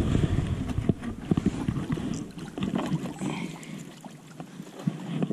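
Footsteps on mud and loose stones with wind rumbling on the microphone; the rumble eases off after about three seconds.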